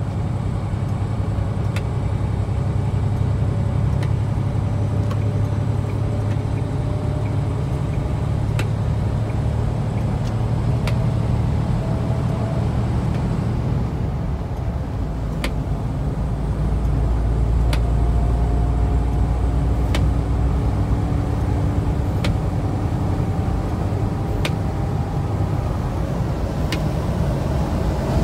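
Semi truck's diesel engine droning steadily inside the cab at highway speed, with constant road noise and a few faint sharp clicks now and then.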